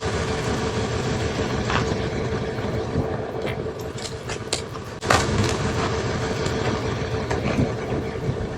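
John Deere 3046R compact tractor running steadily with its snowblower working, with a steady whine through the machine noise and scattered clatter and knocks. A sharper knock comes about five seconds in.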